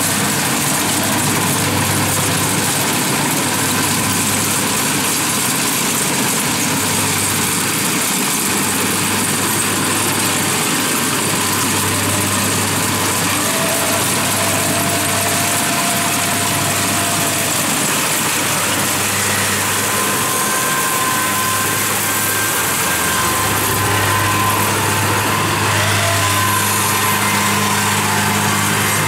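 Kubota DC-70 rice combine harvester's diesel engine running steadily as the machine cuts and threshes rice. It grows a little louder from about two-thirds of the way in as the combine comes close.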